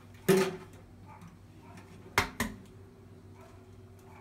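A dull knock, then about two seconds in a sharp crack followed at once by a softer tap: an egg being struck against the rim of a plastic mixing bowl to crack it open.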